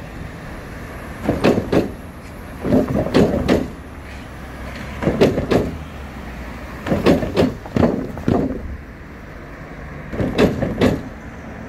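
Cars rolling over the worn wooden plank deck of a disused railway level crossing: the boards clatter and knock under the wheels in about six bursts, each a quick double knock. This racket is the noise that carries to nearby flats every time a vehicle crosses.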